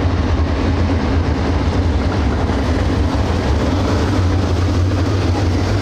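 A field of dirt late model race cars with GM 602 crate V8 engines running together on the track, a steady, loud engine drone.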